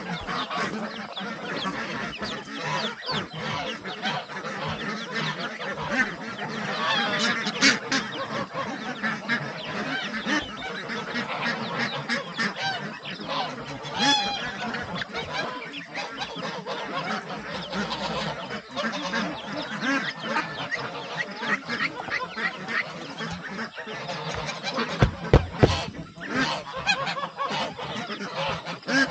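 A flock of domestic geese and ducks honking and quacking with many overlapping calls and no break, with a few sharp knocks near the end.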